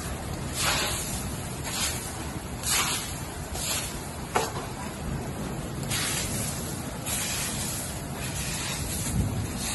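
Broom sweeping piled hailstones off a porch: repeated swishing strokes, roughly one a second, with a single sharp knock about four seconds in.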